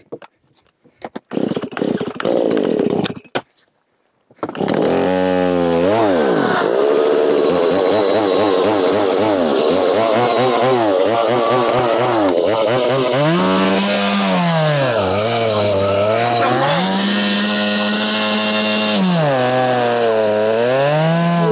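Stihl MS170 two-stroke chainsaw being started cold: scattered noises, then the engine catches about four seconds in and runs loud for the rest of the time. Its pitch rises and falls repeatedly as it is worked through the warm-up and into an ash log.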